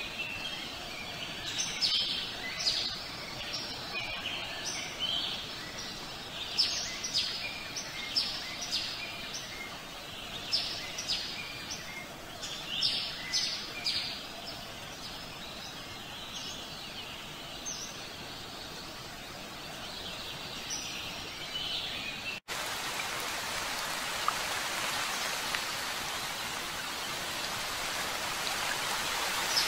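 Songbirds chirping over a steady background hiss, the chirps thinning out after about fifteen seconds; about 22 seconds in the ambience cuts abruptly to steady rain.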